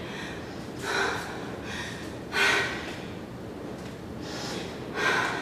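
A woman breathing hard after a bodyweight HIIT workout: four short, noisy breaths spaced a second or two apart.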